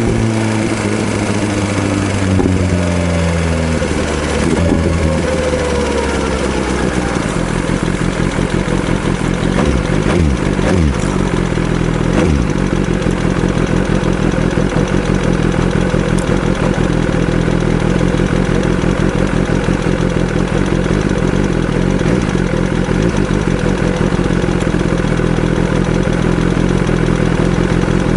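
BMW S1000RR inline-four engine running, its revs falling over the first several seconds and then settling into a steady idle. A fast clattering comes from the valvetrain, which the dealer puts down to a worn camshaft leaving a gap between the rocker arms and the cam.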